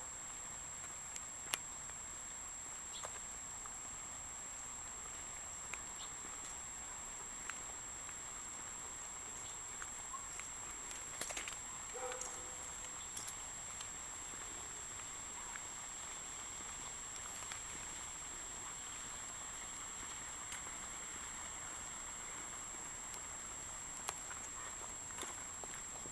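Faint outdoor background: a steady hiss with a thin, high, steady whine, and a few light, irregular clicks scattered through it.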